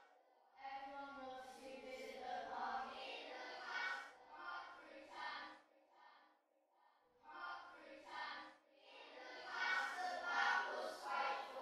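A group of children's voices singing together in short phrases, broken by brief pauses, with a longer pause a little past halfway.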